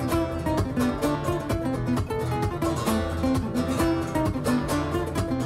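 Background music: acoustic guitar playing a quick run of plucked and strummed notes.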